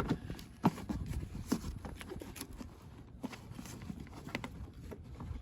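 Irregular light metallic clicks and knocks of a hand wrench turning the seatbelt anchor bolts, starting them in their threads by hand.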